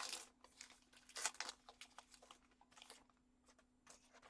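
Foil trading-card pack wrapper crinkling and tearing open in a few short rustling bursts, the loudest about a second in, then a few faint handling clicks.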